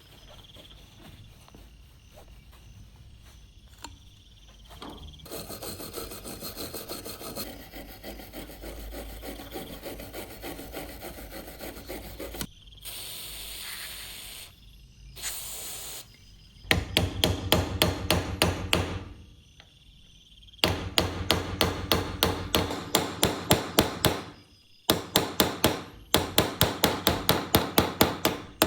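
Hand tools working on metal: a stretch of scraping and rubbing, then three runs of rapid, evenly spaced hammer blows, the loudest part, with short pauses between the runs.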